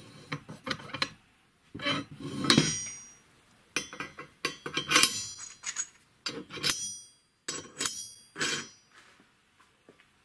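Steel parts of a homemade wheel-bearing bender clanking and clinking together, a string of sharp metal knocks with short ringing, in clusters every second or two.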